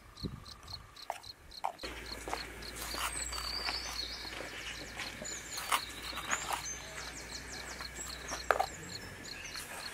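Background ambience of an insect chirping steadily, about two to three chirps a second, with scattered bird chirps and a few sharp light taps.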